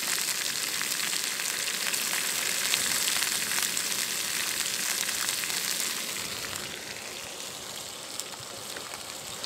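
Vegetables sizzling in a hot frying pan: a steady frying hiss dotted with small crackles, which drops quieter about six seconds in.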